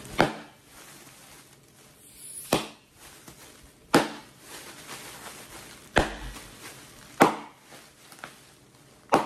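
Plastic air-pillow packing cushions squeezed by hand and bursting one after another: about six sharp pops, one to two and a half seconds apart, with soft plastic crinkling between them.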